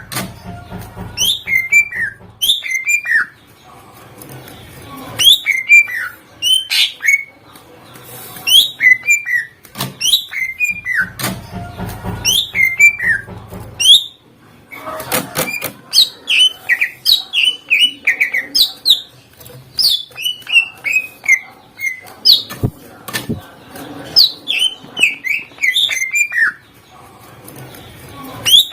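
Cucak ijo (green leafbird) singing loudly in rapid phrases of sharp, sliding whistled notes, its full song with mimicked calls of other birds. A low rumble sits under the song twice.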